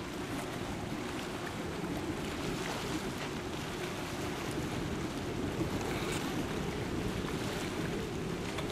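Steady low rumbling noise of wind and sea, with wind buffeting the microphone.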